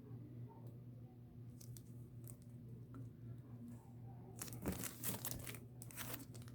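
Packaging crinkling and tearing as an art print is unwrapped: a few faint handling ticks, then a busy stretch of crinkling from about four seconds in, over a low steady hum.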